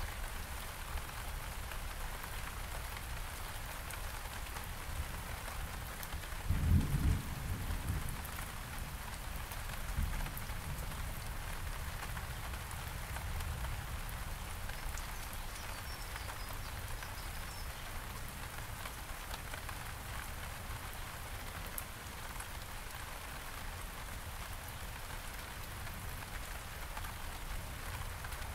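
Steady rain falling on garden surfaces during a thunderstorm. About seven seconds in comes a short, loud, low rumble of thunder, with a fainter low rumble about three seconds later.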